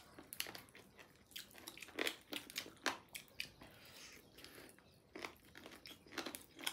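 People eating chicken wings and spicy instant noodles: irregular bites, crunches and chewing, with small sharp mouth and food clicks.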